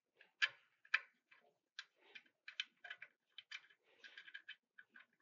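Small metallic clicks of a hex key working screws into a metal mounting bracket: two sharper clicks in the first second, then a run of faint, irregular ticks.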